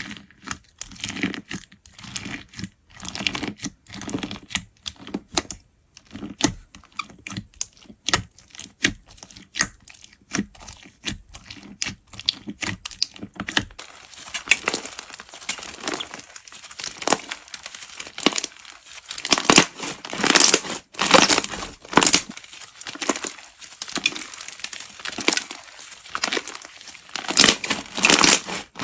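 Slime being squeezed and stretched by hand: a run of quick, sharp crackles and pops, turning about halfway into louder, longer crackling squishes.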